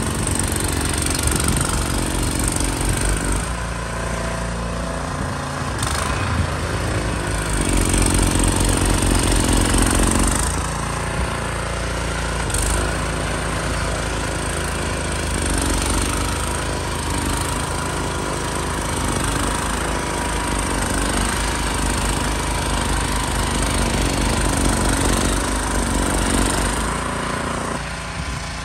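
Gas snowblower engine running under load as it cuts through deep snow and throws it out the chute, its steady engine note rising and falling in loudness as it works.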